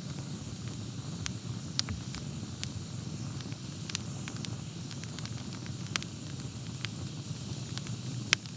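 Wood campfire burning: a steady low rush of flame with scattered sharp crackling pops, the loudest pop near the end.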